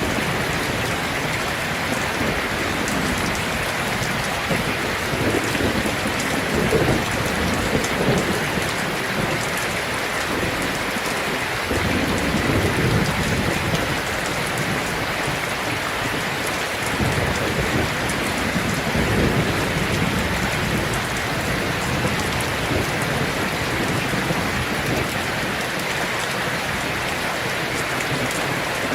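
Heavy rain drumming steadily on a tin roof, with low rumbles of thunder swelling up a few times.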